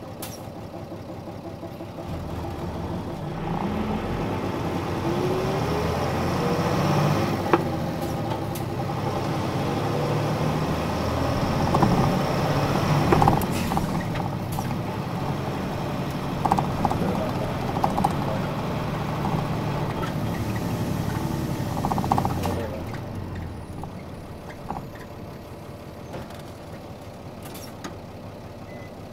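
Diesel engine of a 1999 Nissan Diesel Space Runner RM (KC-RM211GAN) midsize bus heard from on board. About two seconds in it picks up from idle and revs up with rising pitch, runs steadily under load with a few knocks and rattles, then drops back to a quieter idle a little past three-quarters of the way through.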